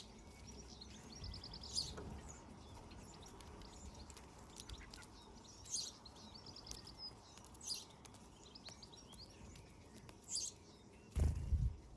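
Small garden birds chirping, with repeated short high chirps and quick rattling runs of notes. A low thud about eleven seconds in is the loudest sound.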